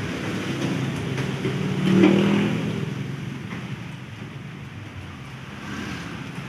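A car engine revving once, rising to a peak about two seconds in and then dropping back to a low run.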